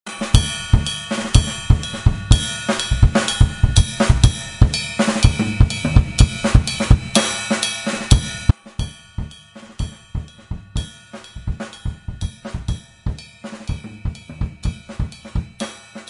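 Drum kit playing a beat of kick drum, snare and cymbals, its kick drum recorded through a Gear One MK 1000 kick drum microphone. About eight and a half seconds in the playing drops in level and thins out to sparser hits.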